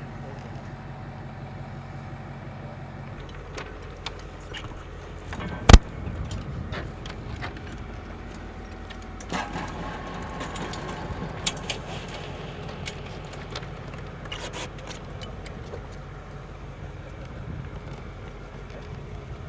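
Steel chain on a chain hoist clinking and rattling as a load is lowered, with scattered metallic clicks and one sharp, loud knock about six seconds in, over a steady low rumble.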